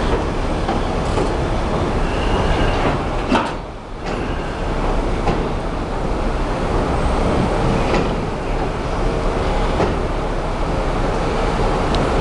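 Subway work train's flatcars rolling past on the track: a steady, loud rumble of steel wheels on rail, broken by a few sharp clacks over rail joints. A steady hum comes in about halfway through.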